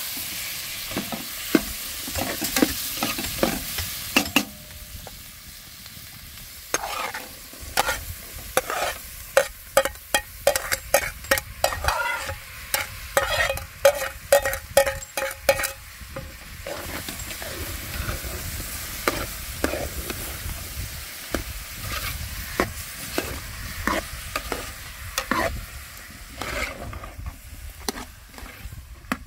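Food sizzling in a pan while it is stirred, with a spoon knocking and scraping against the pan in a quick run of strokes through the middle. The sizzle is strongest at the start.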